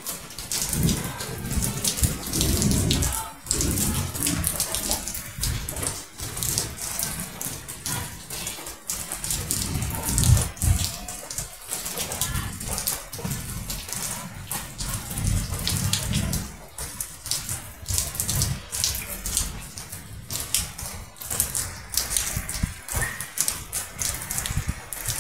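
Rain falling steadily and running off a roof edge: a dense patter of drops and splashing water, with irregular low rumbles, the strongest about ten seconds in.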